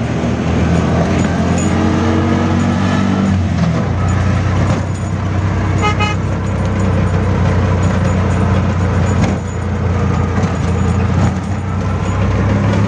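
Auto rickshaw engine running steadily under way, heard from inside the cab. The horn gives one short beep about halfway through.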